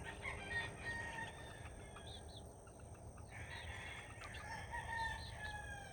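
Young roosters crowing faintly, two long crows one after the other.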